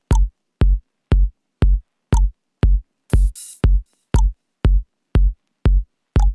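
Electronic backing music: a drum-machine kick thumping steadily twice a second with silence between the beats, and a short cymbal-like hiss about three seconds in.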